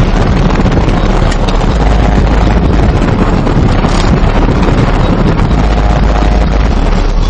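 Alpine Type-X 10-inch car subwoofer playing bass-heavy music at very high level, so loud it overloads the microphone into a distorted, rumbling roar.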